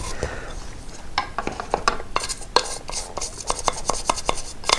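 A hand tool scraping and clicking irregularly as it picks dried chain-spray build-up and grit out from under the chain cover of a Royal Enfield Himalayan 411; the clicking starts about a second in.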